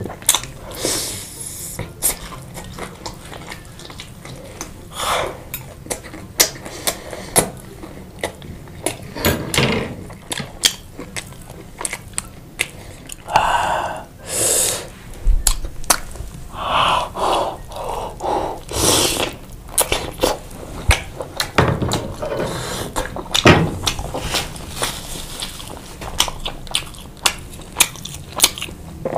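Close-up mukbang eating sounds of chicken and pasta with sauce: wet chewing and biting with many sharp clicks, and several longer noisy mouth sounds in the middle of the stretch.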